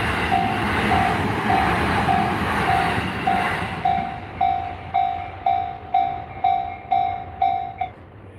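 Japanese level-crossing warning bell ringing about twice a second while a train passes on the rails. The train noise fades away about halfway through, and the bell stops near the end.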